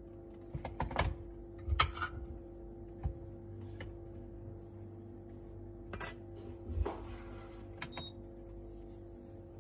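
Scattered clicks and knocks of coffee gear being handled on a counter, with a brief ringing metallic ping near the end, over a steady low hum.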